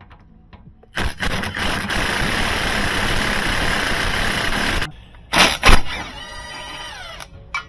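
Milwaukee M18 FUEL cordless compact impact wrench running on a suspension nut for about four seconds, then two short bursts, its motor winding down with a falling whine.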